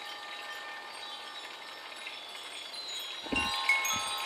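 Wind chimes ringing in a breeze: several overlapping ringing tones at different pitches, each struck and fading, with more strikes near the end. A low thump about three seconds in.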